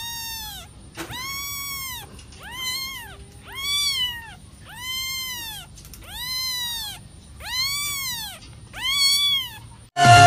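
A kitten meowing over and over, high-pitched calls about one a second, each rising and then falling in pitch. Electronic dance music cuts in suddenly at the very end.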